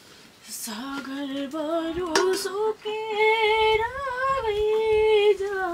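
A high voice singing a slow tune in long held notes, with a short knock about two seconds in.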